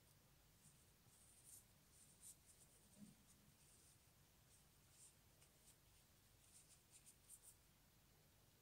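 Near silence with faint, scattered soft rustles and scratches: fingers folding and handling a small knitted piece.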